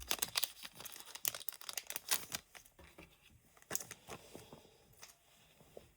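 Pokémon card booster pack being torn open by hand, its foil wrapper crinkling and crackling, most densely in the first two seconds or so, then in scattered rustles.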